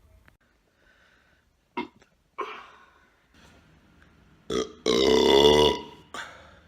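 A man burping: a few short burps, then a loud, drawn-out pitched belch of about a second, starting about five seconds in, followed by one more short burp.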